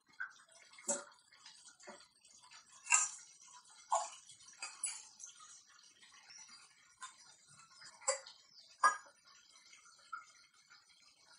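Thick tamarind gravy bubbling in a clay pot on the boil. Irregular pops and plops go off every second or so.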